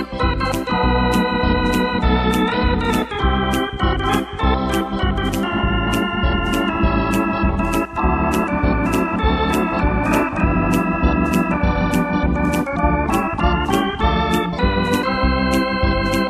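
Electronic arranger keyboard played with an organ sound, chords and melody over a bass line and a steady accompaniment beat of about two strokes a second.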